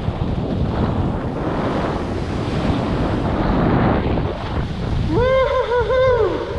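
Wind rushing over the microphone of a skier moving downhill at speed. About five seconds in, a person lets out a high, wavering whoop lasting about a second.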